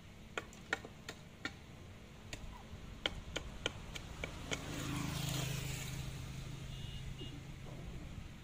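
A dozen or so sharp knocks at an uneven pace in the first half, then a motor vehicle passing, a low steady hum with a rushing sound that swells about five seconds in and fades near the end.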